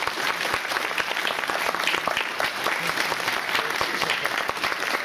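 Audience applauding: many hands clapping at once in a steady, dense patter.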